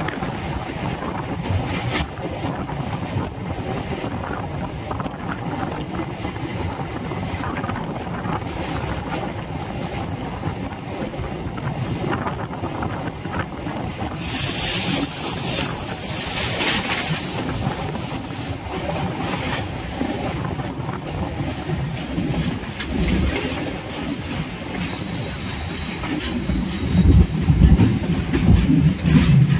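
Suburban electric multiple unit (EMU) train running along the line, heard from its open doorway: a steady rumble of wheels clacking over the rails. A sharp high hiss lasts about four seconds midway, and a louder low rumbling comes near the end.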